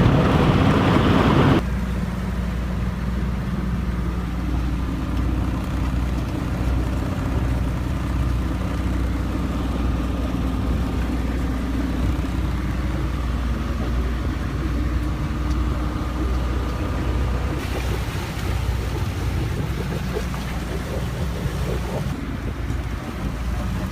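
Steady drone of a sailboat's engine running under way, with a noisy wash of wind and water over it. A louder rush in the first second and a half cuts off abruptly.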